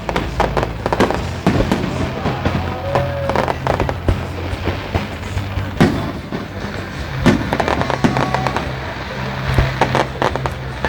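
Aerial fireworks bursting in a rapid, irregular run of sharp bangs, with music playing underneath.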